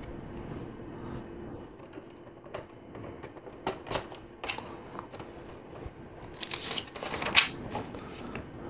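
Plastic LEGO Technic parts clicking and rattling as they are handled and fitted together: scattered light clicks, then a quicker flurry of them with the sharpest click about seven and a half seconds in.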